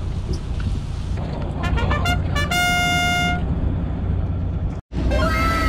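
Steady low engine hum of a fishing boat. About two seconds in come a quick run of short beeps, then a clean horn-like toot of about a second. After a sudden cut, near the end, several falling whistle glides come in, like cartoon sound effects.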